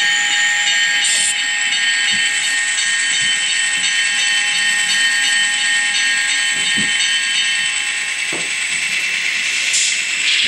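A model locomotive's sound decoder playing diesel locomotive engine sound through a tiny speaker: a steady, thin, hissy running sound with a few fixed tones, plus short bursts of hiss about a second in and near the end.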